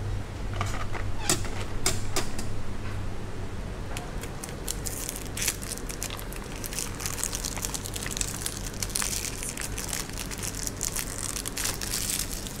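A few sharp clicks as the clear plastic flap of a vending-machine compartment is opened and the box is taken out, then a long stretch of crinkling and rustling as hands handle a small wrapped cardboard box of chocolate. A steady low hum runs underneath.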